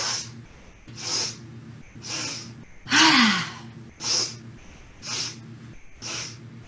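A woman's breath-of-joy breathing: short, sharp sniffs in through the nose about once a second, three in a row, then a louder exhale voiced as a falling sigh about three seconds in, then three more sniffs.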